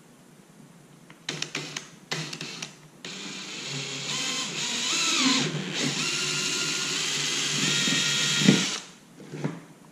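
Cordless drill with a quarter-inch bit boring a hole through one wall of a PVC tube: a few short bursts about a second in, then the motor runs steadily for about six seconds, its whine shifting in pitch as the bit cuts, and stops shortly before the end.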